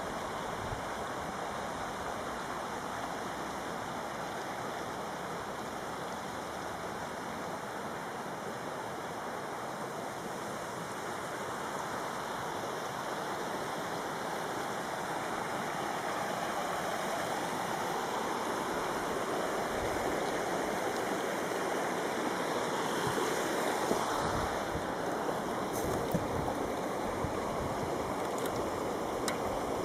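Running water rushing steadily, growing a little louder about halfway through, with a few faint clicks near the end.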